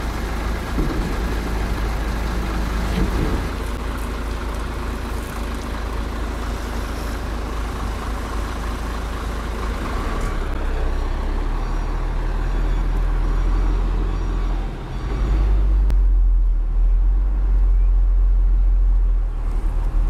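Isuzu Giga FVZ self-loader truck's diesel engine running steadily. About three-quarters of the way through it changes to a louder, deeper, steady engine drone heard from inside the cab as the truck drives.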